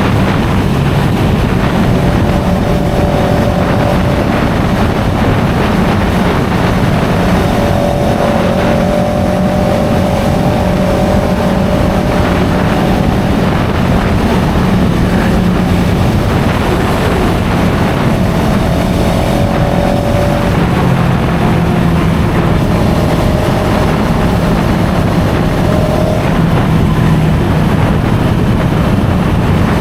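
CFMOTO 700CL-X Sport's parallel-twin engine running through its stock exhaust, holding a fairly steady speed with small rises and dips in pitch.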